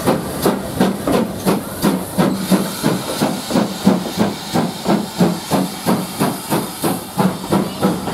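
GWR Manor class 4-6-0 steam locomotive 'Dinmore Manor' passing close under power: a steady run of exhaust chuffs, about three beats a second, over a hiss of steam.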